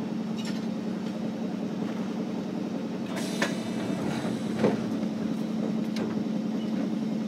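Onboard sound of a Hiroden 700-series tram, car 703: a steady low hum with rumbling noise. Two sharp knocks come about three and a half seconds in and a little later, the second one louder.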